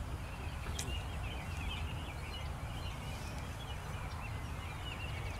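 Birds chirping in the trees, a string of short repeated calls that thin out after the first few seconds, over a steady low outdoor rumble. A single sharp click comes about a second in.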